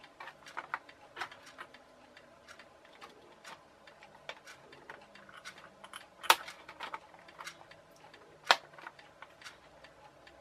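Hard plastic toy boat parts clicking and tapping while a cabin piece is fitted onto the hull, with two sharper clicks about two seconds apart past the middle.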